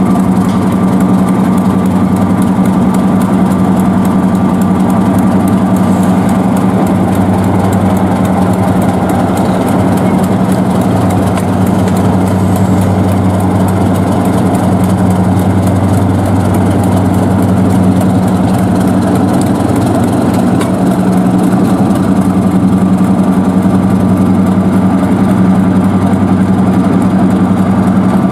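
Class 31 diesel-electric locomotive's English Electric 12SVT V12 diesel engine running steadily at low power soon after a cold start, with a deep, even hum.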